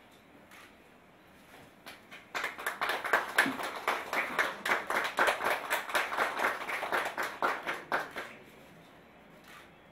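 People clapping their hands in applause, starting about two seconds in and dying away about eight seconds in.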